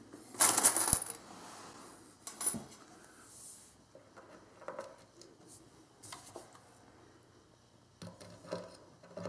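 A small steel screw clatters and jingles briefly on a metal surface about half a second in. A few faint light clicks follow as the screw is handled on the driver bit.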